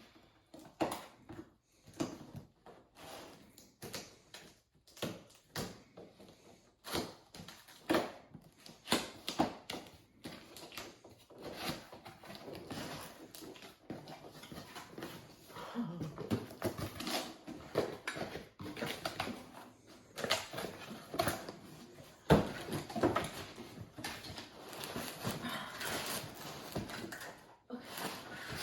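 Cardboard boxes and packaging being handled while unpacking: irregular rustling, scraping and knocking that goes on and off, busiest in the second half.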